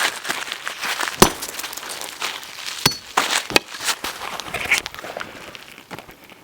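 Sledgehammer blows smashing an iPhone 4S on a steel plate: a series of sharp hits and crunching, the loudest about a second in, with smaller crackles between.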